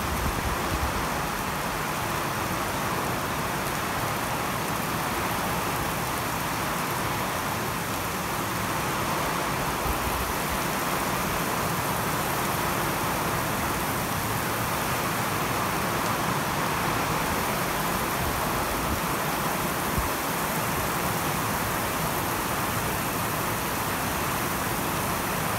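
Steady rain falling on wet pavement and container roofs, an even hiss that holds throughout.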